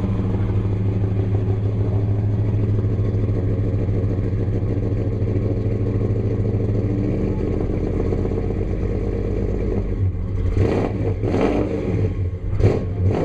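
1969 Dodge Coronet Super Bee's V8 idling with a steady exhaust rumble, then given several short, sharp throttle blips from about ten seconds in.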